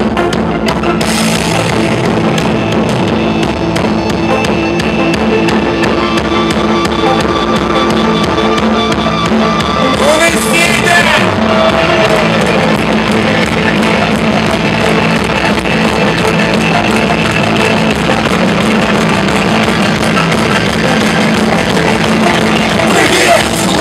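Live rock band playing loudly: drum kit, electric guitar and trombone.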